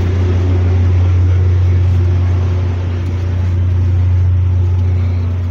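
Loud, steady low mechanical hum that holds one pitch without change, like running machinery.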